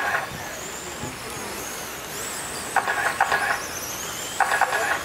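Radio-controlled late model race cars running laps on a dirt oval, their motors giving a high whine that rises and falls as they pass. Two pairs of short buzzing squeals, about three seconds in and near the end, are the loudest sounds.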